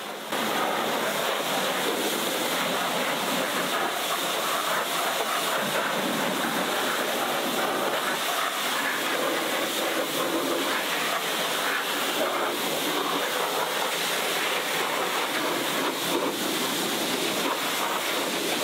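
Pressure washer jet spraying water against the underside of a car bonnet: a steady hiss of high-pressure spray and spatter as the all-purpose cleaner and suds are rinsed off.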